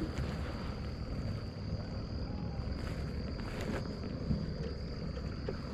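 Steady high-pitched insect drone of a dusk chorus, over a low rumble of wind and handling on the microphone, with a few faint clicks.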